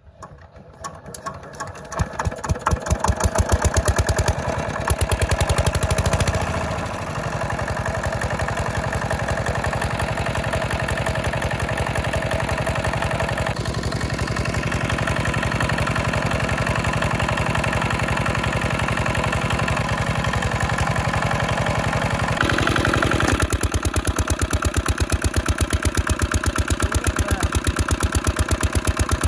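Single-cylinder, water-hopper-cooled diesel engine starting and quickly settling into a steady run with a fast, even beat. It is driving an irrigation tubewell pump.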